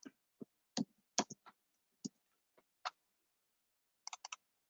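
Computer keyboard keystrokes: scattered single taps, then a quick run of four near the end.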